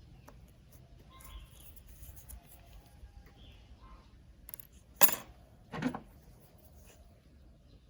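Small hard parts or tools being handled on a work surface: faint light ticks and rustles, then two sharp clatters about a second apart just past the middle, the first the louder.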